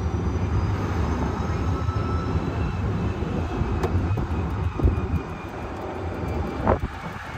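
Low rumble of an open-sided car driving slowly along a street, with wind on the microphone. A faint whine rises slightly in pitch in the first couple of seconds, and there are a couple of brief knocks later on.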